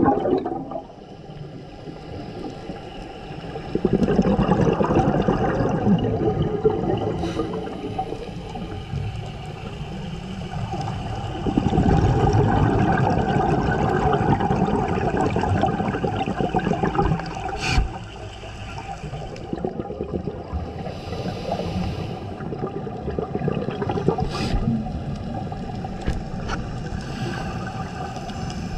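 Scuba divers' regulator exhalations heard underwater: long surges of bubbling rush, the loudest from about 4 to 11 seconds and 12 to 17 seconds in, over a steady hum, with a few sharp clicks.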